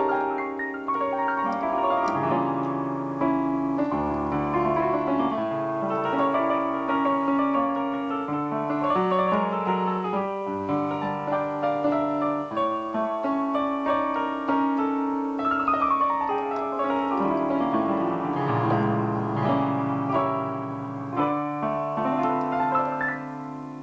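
Electronic keyboard played with a piano sound: a jazz piece built on Crimean Tatar folk melody, with chords over bass notes and a falling run of notes about two-thirds of the way through.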